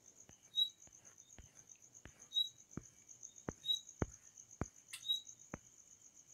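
Faint background with an insect trilling steadily in a high, evenly pulsing tone. Short high chirps recur every second or so, and scattered sharp clicks come at irregular intervals.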